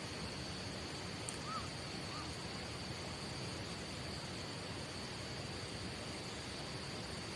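An insect's steady, high-pitched trill over a constant outdoor hiss, with two short chirps about a second and a half and two seconds in.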